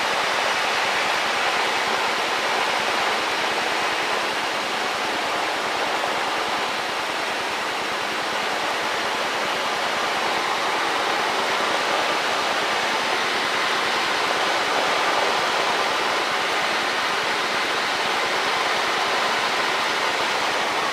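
Steady in-flight cockpit noise of a Cessna 152, the engine and airflow heard as an even, unbroken hiss.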